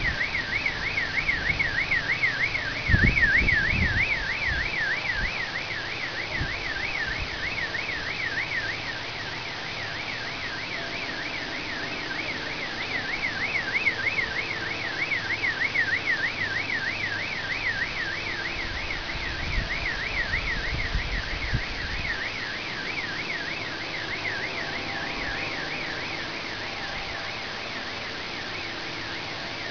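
Car alarm siren warbling continuously, its tone sweeping up and down about three times a second, over a steady rushing background noise.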